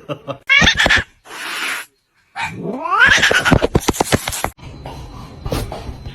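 A cat yowling: a short cry about half a second in, a brief hiss, then a longer drawn-out call that rises in pitch.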